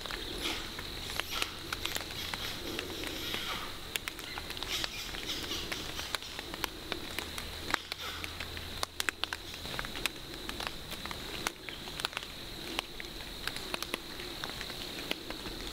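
Irregular light crackling and ticking in leaf litter on the forest floor, many small ticks a second, with a faint steady high hiss behind it.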